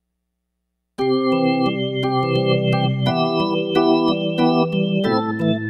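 Synthesizer organ patch from the Roland SR-JV80-01 Pop expansion board playing sustained chords. It starts suddenly about a second in and changes chord about every two seconds.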